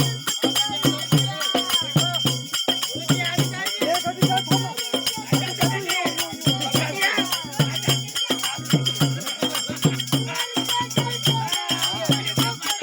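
Folk devotional song performed live: a voice singing over a steady beat of rattling, jingling percussion.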